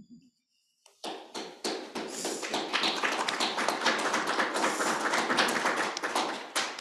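A group of people clapping: a few scattered claps about a second in build quickly into steady applause, which fades out near the end.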